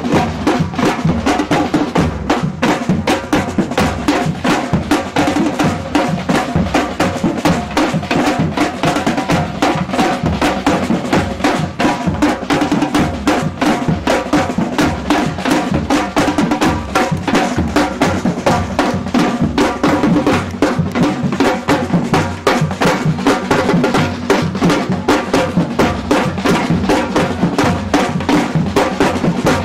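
Samba drum troupe (batucada) playing a steady, dense rhythm together, with deep bass drums under sharper snare-like drums.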